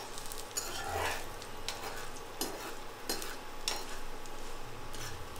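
Tempering of mustard seeds, urad dal, cashews and dried red chillies sizzling in hot oil in a metal pan, with a few sharp crackles. A slotted metal spatula is stirring and scraping across the pan. The mustard seeds have spluttered and the mix is just turning reddish.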